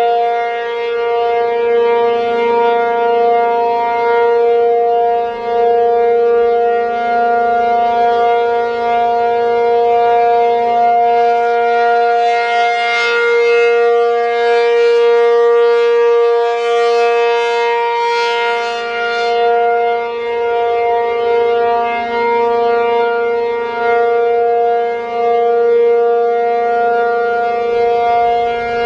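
ACA P-50 outdoor warning siren sounding its steady alert signal, one held chord-like tone that swells and fades slightly in loudness. It is running the full three-minute alert because it ignored the cancel tones.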